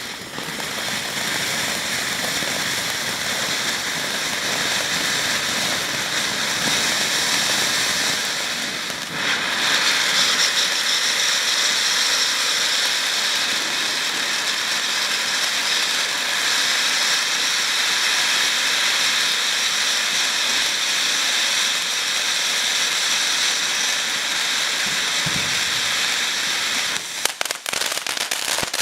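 Weco 'Ocean of Lights' fountain battery spraying with a steady, loud hiss; about nine seconds in the hiss gets louder as the effect shifts, and near the end a quick run of crackling pops breaks in.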